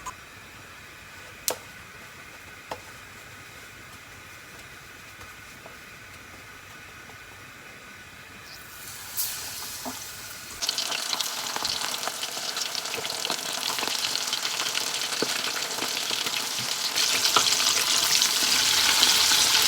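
Starch-coated scabbard fish deep-frying in vegetable oil at around 160 °C: after a quiet start with a couple of light clicks, the oil starts sizzling and crackling suddenly about halfway through and gets louder near the end.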